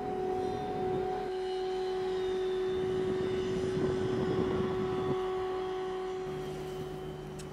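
Heavy machinery running with a steady whine and a fainter, higher whine above it. A rushing noise swells about three to five seconds in, and a lower steady hum takes over near the end.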